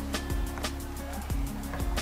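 Background music with a steady beat of about two hits a second over held bass notes.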